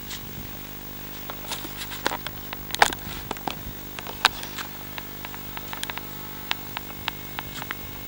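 A motor hums steadily, with many irregular sharp clicks and crackles over it, the loudest about three seconds in.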